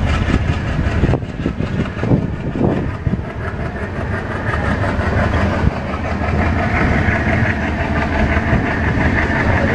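Passenger train running, heard from an open coach window: a steady rumble with wheels clattering over rail joints, and a few sharper knocks in the first three seconds.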